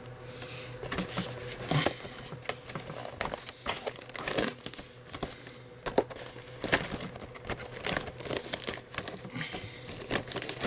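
Plastic shrink wrap on a Pokémon card collection box being torn off and crumpled by hand: irregular crinkling and crackling with short tearing sounds.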